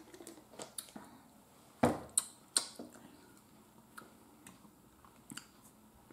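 Sharp clicks and knocks, loudest around two seconds in: a plastic water bottle being handled and set down on the table, then a fork clicking against a metal baking pan a few times.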